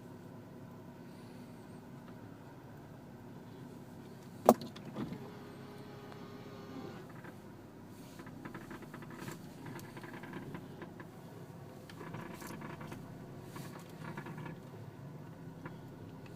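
Strange noises from a 2012 Dodge Journey, the kind its owner cannot place and hears when steering, driving and reversing. A single sharp click comes about four and a half seconds in, followed by a short steady whine of about two seconds. Irregular clicking and creaking follows through the rest of the stretch.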